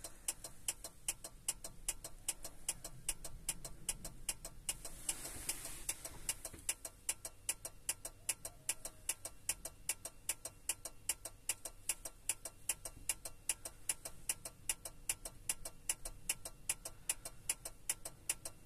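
Rapid, even ticking, several ticks a second, from a Valtra tractor's electrics with the ignition on while the diesel's glow plugs preheat for a cold start.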